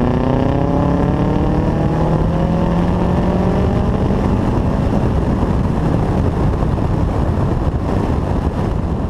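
Subaru Impreza STi's turbocharged EJ257 flat-four, through a catless downpipe and 3-inch exhaust with a race muffler, under full throttle in a fourth-gear pull, its pitch rising in the first couple of seconds. It then turns to a rough, noisy rumble with wind, and the level eases near the end.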